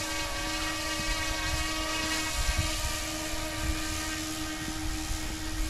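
Steady whine from a YXZNRC F09-S UH-60 RC helicopter's electric motor and rotors in flight, with its pitch wavering slightly as the throttle shifts.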